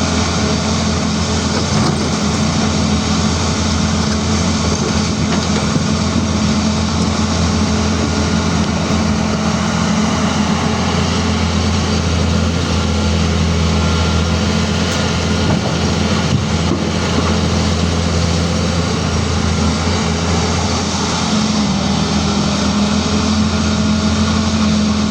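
CAT 336D excavator's diesel engine running steadily, with a constant low hum. Its note shifts slightly about 21 seconds in.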